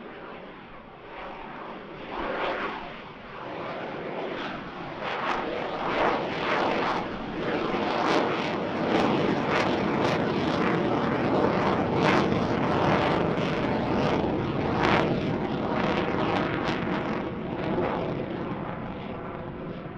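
F-22 Raptor fighter jet's twin Pratt & Whitney F119 turbofans roaring overhead. The sound builds over the first few seconds to a loud, crackling roar and eases off near the end as the jet moves away.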